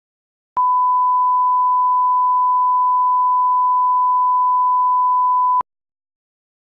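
A steady 1 kHz line-up test tone, the reference tone that goes with colour bars. It starts about half a second in with a click and stops with a click about five seconds later.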